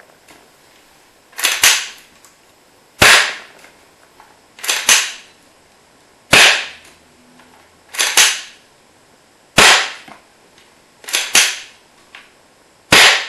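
King Arms SVD Dragunov spring airsoft rifle with its stock M150 spring fired four times into a chronograph, each shot a single sharp crack, about three seconds apart. Between shots comes a double clack as the bolt is worked open and shut to recock the spring.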